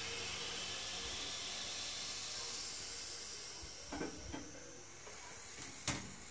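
Low-level toilet cistern refilling after a flush: the inlet valve hisses steadily, the hiss dying down over the first few seconds. A few light knocks follow in the second half.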